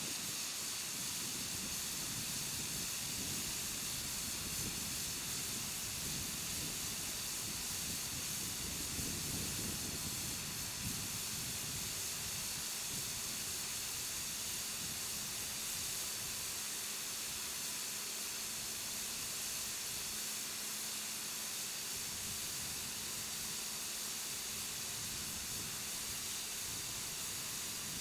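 Air hissing steadily out of a 20.8R38 tractor-tyre inner tube as it slowly deflates, with a low rumble under it for the first several seconds.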